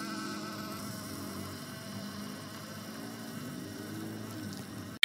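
Small electric motor and gearbox of a battery-powered ice-cream-stick toy truck, giving a steady buzzing whine with a slightly wavering pitch as it drives across concrete.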